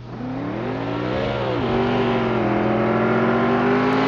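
Car engine revving: its pitch climbs, drops sharply about one and a half seconds in as if shifting gear, then rises slowly again.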